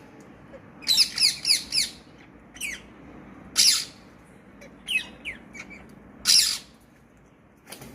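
Parrot squawking: a quick run of four loud calls, each falling in pitch, about a second in, then single calls spread through the rest, the loudest around three and a half and six seconds in.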